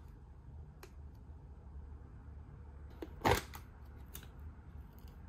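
A clear plastic dessert tub and its lid being handled: a few light clicks, and one sharp plastic crackle a little past three seconds in as the lid comes off, over a low steady room hum.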